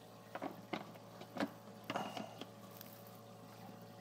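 Black plastic access panel being pushed into place on the underside of a dishwasher: about five sharp plastic clicks and knocks in the first two and a half seconds, over a low steady hum.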